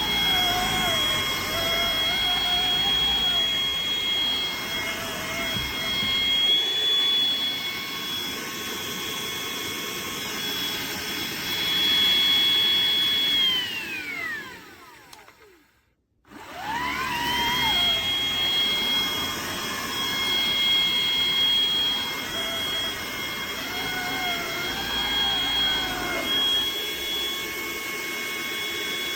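Hoover ONEPWR Evolve Pet Elite cordless stick vacuum running with a steady high whine. About halfway through, the motor is switched off and its whine falls away to silence; it is then switched back on and spins up to full speed within about a second.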